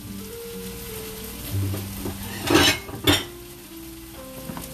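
Food sizzling in a frying pan as it finishes cooking, with two loud clatters of dishware about half a second apart a little past the middle.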